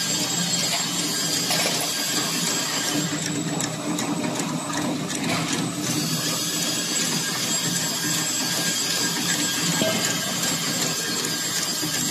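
A 76 mm tube chain conveyor running: a steady machine hum under a dense fine ticking rattle, heavier from about three to six seconds in.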